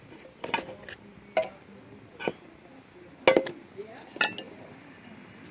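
Old metal oil cans knocking and clinking against one another as they are handled, about five sharp knocks roughly a second apart, some with a short metallic ring.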